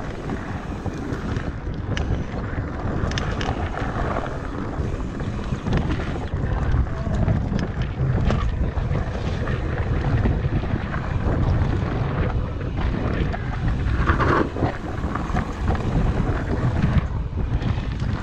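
Wind buffeting a GoPro's microphone as a mountain bike rolls fast down a dirt singletrack, with a steady rumble from the tyres and scattered short rattles and clicks as the bike goes over bumps.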